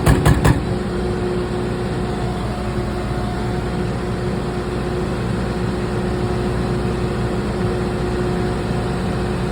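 An engine running steadily, with a constant hum tone over it. A few quick knocks come right at the start.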